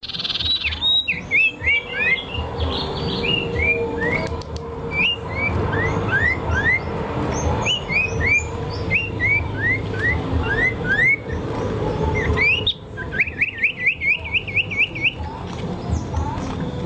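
A songbird singing a string of short, clear whistled notes that each slide downward, repeated over and over. Near the end it breaks into a fast run of quick rising notes, about six a second, before going back to single notes.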